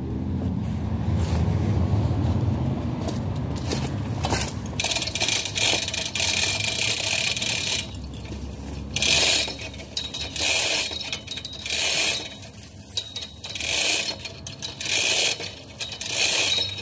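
Manual chain hoist hung from a steel tripod being worked hand over hand: its metal chain rattles and jingles through the block in short repeated pulls, about one a second, starting a few seconds in after a low rumble. This is the hoist lifting a rose bush out of the ground.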